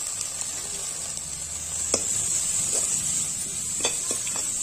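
Greens and onion masala sizzling in hot mustard oil in a steel kadhai, with a perforated steel spoon scraping and knocking against the pan a few times as it stirs.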